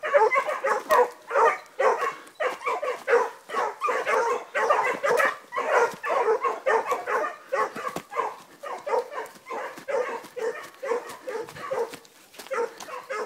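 Hunting dogs giving tongue on a hare's trail: continuous, overlapping baying from more than one dog, two to three barks a second.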